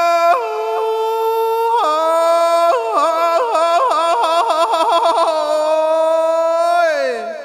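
A man's high, unaccompanied sung call in the Khmer Surin kantrum style. It goes in long held notes, with a stretch of rapid warbling ornaments in the middle, and the last note slides downward near the end.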